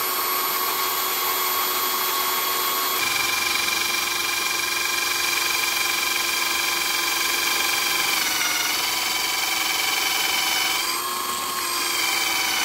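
KIMO 20V cordless drill running under load as it bores into dead tree wood, a steady motor whine whose pitch shifts slightly a few times as the bit works deeper.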